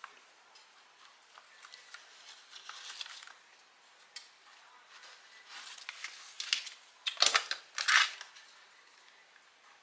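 Paper dollar bills rustling and sliding as they are handled and counted, with louder rustles and a soft knock about seven to eight seconds in.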